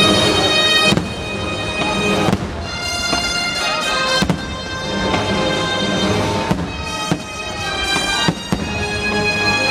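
Fireworks show music with long held chords, with several sharp firework bangs cracking through it at uneven intervals.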